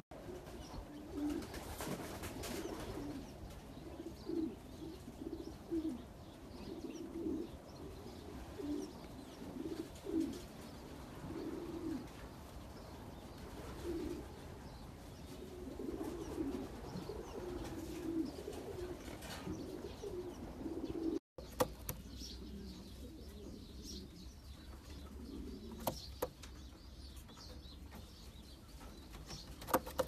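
Racing pigeons cooing: a long run of repeated low coos, each under a second. After a brief break about two-thirds of the way through, the cooing goes on fainter, with a few sharp clicks near the end.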